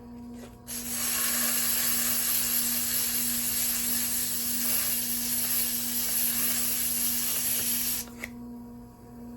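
A 400-grit diamond sanding pad pressed hard against the bottom of a fired pot spinning on a pottery wheel, giving a steady loud hiss that starts about a second in and stops sharply near the end. The pad is smoothing a stubborn rough spot so the pot's bottom won't scratch surfaces. A steady low hum runs underneath.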